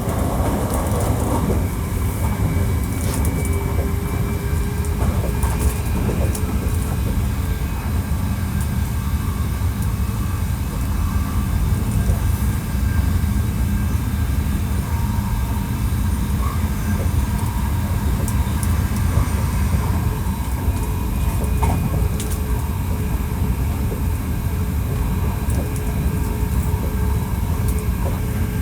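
Hankyu 1300 series electric train, with Toyo IGBT inverter control, running at a steady speed, heard from inside the car: a continuous low rumble of wheels on rail with faint steady motor tones above it and occasional small clicks.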